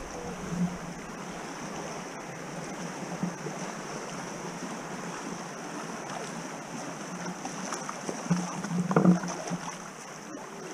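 River water rushing and lapping around inflatable tubes drifting downstream, picked up close to the water; it briefly gets louder about nine seconds in.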